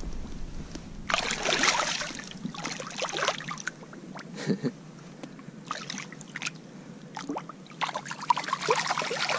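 A small northern pike splashing and thrashing in shallow, weedy water in several irregular bursts of about a second each.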